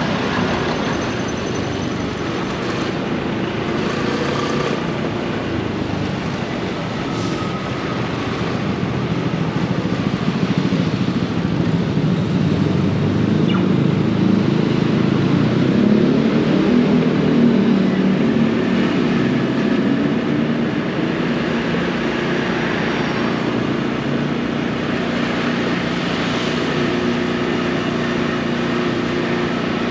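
Motorbike engine running steadily at low speed while riding, mixed with road and street traffic noise.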